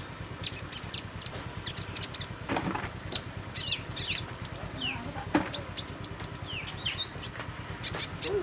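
Male Van Hasselt's sunbird (kolibri ninja) giving rapid, high, thin chirps, some as short falling notes, more crowded in the second half.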